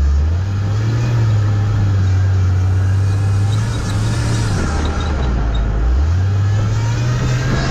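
Off-road sprint car's engine running hard under load. Its pitch steps up about half a second in, dips after about four and a half seconds, and climbs again about six seconds in as the car changes speed.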